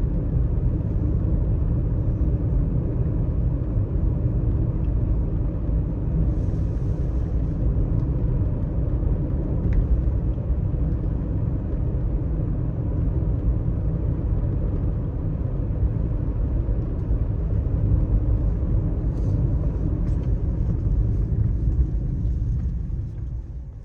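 Steady low road-and-engine rumble of a moving car, which drops away near the end.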